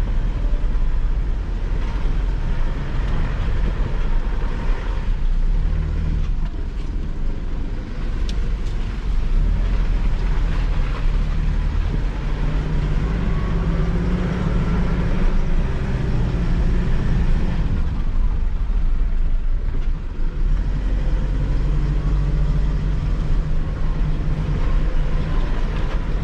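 Mitsubishi L200 Triton pickup's engine pulling in a low gear up a sandy off-road climb in two-wheel drive, its revs rising and falling as the tyres slip in the sand.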